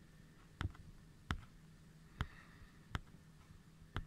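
Five sharp, single clicks at uneven gaps of roughly a second, over a quiet background.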